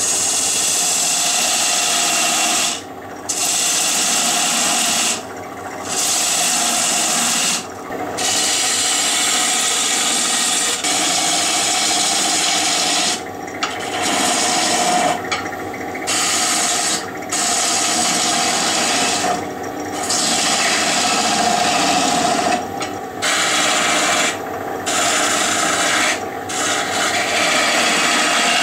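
A hand turning tool cuts a spinning spruce-pine-fir blank on a wood lathe, making a loud, steady scraping hiss of shavings coming off the wood. The cutting stops briefly about every two to three seconds as the tool lifts off between passes.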